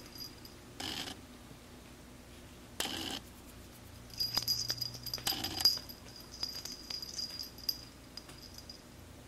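Small bell or tag on a cat's collar jingling in quick irregular bursts as the cat bats at a feather wand toy, with three brief rustling swishes from the toy.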